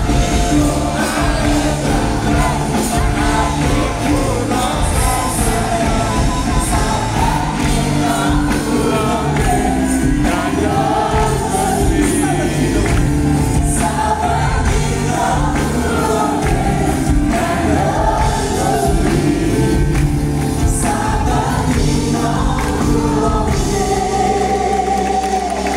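Live choir singing a Javanese-language worship song with a full band accompanying, ending the line on a long held note near the end.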